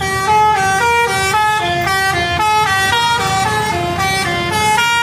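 Bus telolet (basuri) musical horn playing a quick melody of short stepped notes, about four a second, over the low sound of the bus's running engine.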